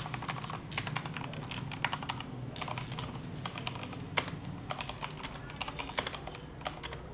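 Typing on a mechanical keyboard with Cherry MX Brown switches: a steady, irregular stream of key presses, each a short clack with no separate click.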